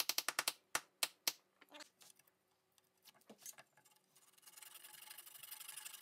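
A mallet driving a wooden dowel pin into a drawbored mortise-and-tenon joint: a quick run of light taps ending about half a second in, then three harder separate blows within the next second. About four seconds in, a flush-cut saw starts sawing off the protruding end of the dowel, a steady rasp that runs on to the end.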